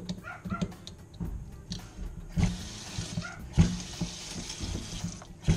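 Moen single-handle kitchen faucet turned on about two seconds in, water running from the spout into a stainless steel sink, with a few dull knocks from handling at the sink. The faucet is being run to test it after its loose handle, the cause of the drip, was tightened.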